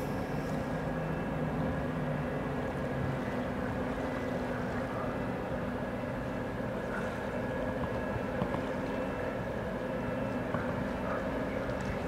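The ferry MV Salish Orca approaching across the water, its engines and machinery a steady low drone with a few held humming pitches.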